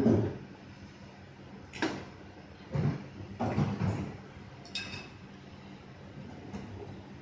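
Kitchen clatter: a saucepan and metal spoon being handled and set down, giving a few scattered knocks and clinks, one with a short metallic ring near the middle, over a steady low hum.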